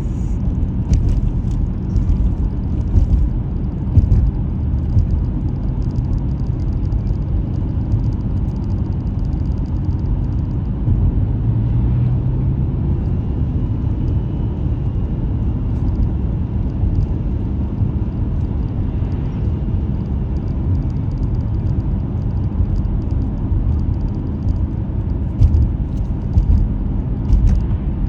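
A car driving: the steady low rumble of its engine and tyres on the road, with scattered short knocks and thumps from bumps along the way.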